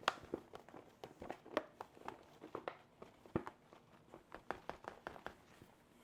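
Faint, irregular small clicks and taps, several a second, from handling a glass storage container while filling it with bread flour.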